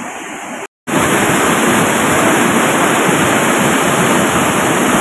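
Floodwater rushing and churning through a breach in a paved road, a steady loud rush of water. It is broken by a brief cut to silence just under a second in, after which the rush is louder.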